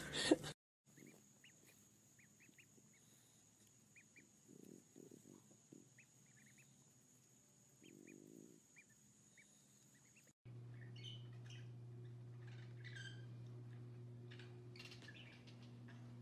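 Ducklings peeping faintly: short, high, scattered cheeps. Then, after a sudden cut a little past halfway, a steady low hum with a few scratchy sounds.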